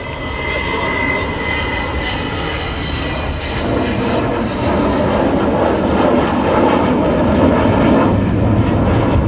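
Avro Vulcan XH558's four Rolls-Royce Olympus turbojets as the delta-wing bomber flies past low. A high steady whine fades a few seconds in, while a deep rumble builds and grows louder toward the end.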